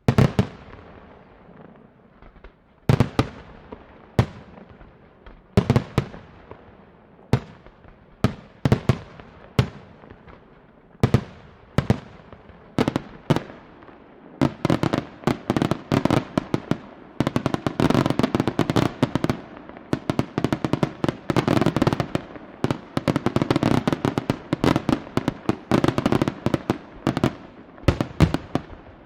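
Aerial fireworks bursting, each a sharp echoing bang: at first one every second or so, then from about halfway a dense, rapid volley of bangs.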